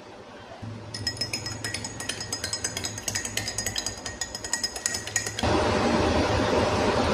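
Rapid, irregular clinking of glass, like utensils or pieces knocking inside a glass, over a low hum. About five seconds in, a louder steady rushing noise takes over and keeps going.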